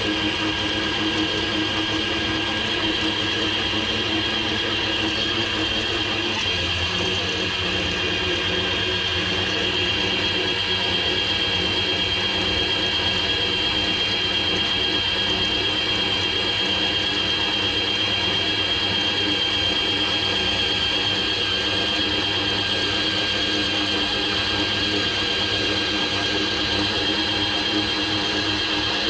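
Shimano Plays 3000 electric fishing reel's motor winding braided line onto its spool: a steady high whine that holds level throughout.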